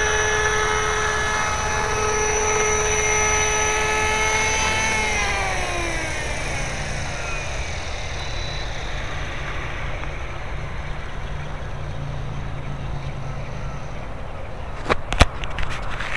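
450-size RC model helicopter with an EC135 scale body, its rotor and motor whining steadily at a constant pitch. About five seconds in, the pitch falls away as the rotor spins down after landing on grass. A few sharp clicks come near the end.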